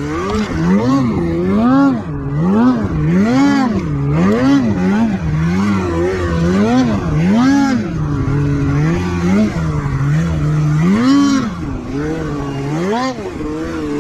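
Snowmobile engine revved in repeated throttle blips, its pitch rising and falling over and over a little faster than once a second as the sled is worked through rough terrain.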